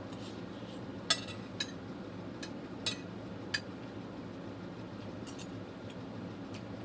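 A metal spoon clinking against a dish as food is scooped and cut: about five sharp clicks spread over the first few seconds, then two faint ones later.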